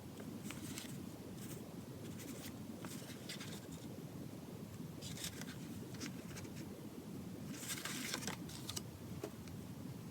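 Short, scattered rustles and scrapes of small items being handled, with the longest stretch near the end and a single click just after it, over a steady low room hum.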